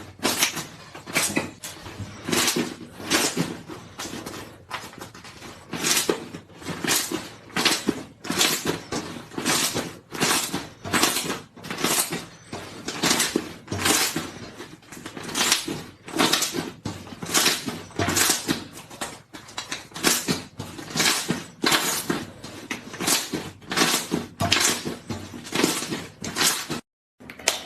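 Slime being squeezed and pressed by hand in a steady rhythm, each squeeze giving a crackly burst of popping air pockets, about one and a half per second.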